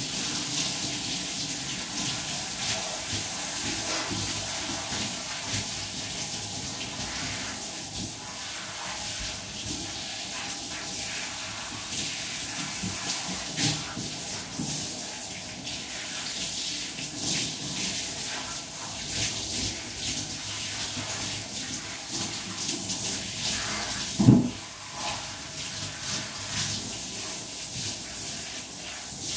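Water from a handheld shower head spraying and splashing onto a dog's wet coat, a steady hiss with small splashes, and a single thump about two-thirds of the way through.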